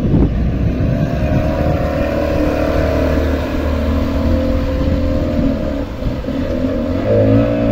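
Outboard motor of a small speedboat running at speed as the boat pulls away, a steady engine note that wavers slightly in pitch and grows louder near the end.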